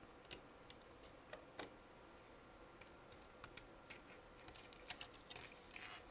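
Faint, irregular light clicks and taps of small tools and parts being handled while the heatsink is taken off a laptop logic board.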